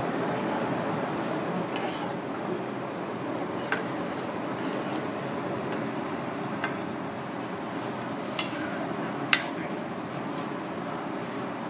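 Broth simmering in a hammered aluminium saucepan over a gas burner, a steady bubbling hiss, with a metal ladle clinking against the pan four times, the last the sharpest.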